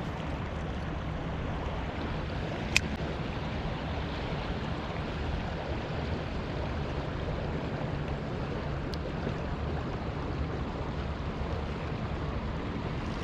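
Creek water rushing steadily over the current, with one sharp click a few seconds in.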